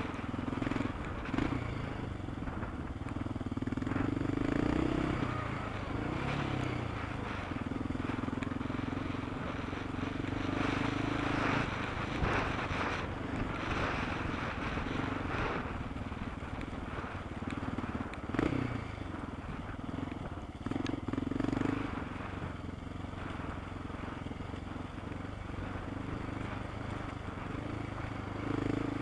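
Off-road motorcycle engine running hard along a rough dirt trail, revs rising and falling as the rider works the throttle, with a few sharp knocks from the bumpy track.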